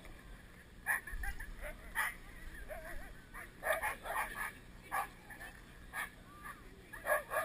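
A team of husky sled dogs barking and yelping in short bursts about once a second, with whines in between: the eager, pre-start clamour of a harnessed team held at the start line.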